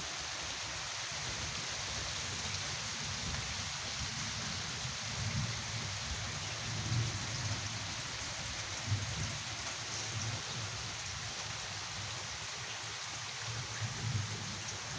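Steady rain falling on trees and roofs, an even hiss throughout, with a few faint low thumps.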